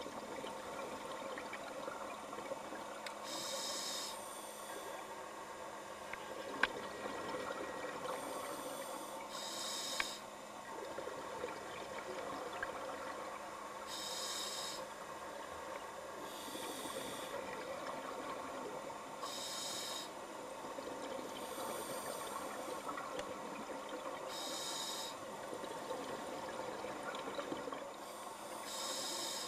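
Scuba diver breathing through a regulator underwater: a hiss on each inhale and a rush of exhaled bubbles, about one breath every five seconds, over a steady underwater hum.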